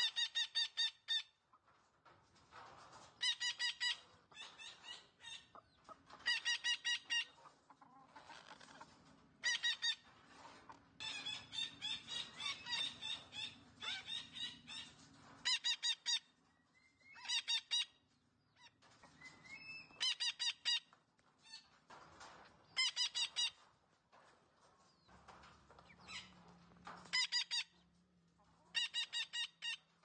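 Red-breasted parakeet calling in short rapid series of repeated notes, a burst of about a second every two to three seconds, with quieter chattering in between.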